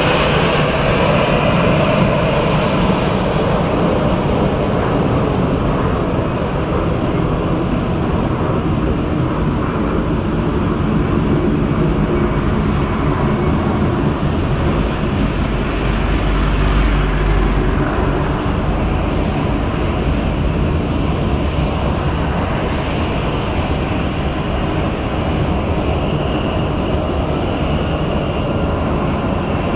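Airbus A220 jet airliner's turbofan engines running steadily at low taxi power. A deeper low rumble swells briefly a little past halfway.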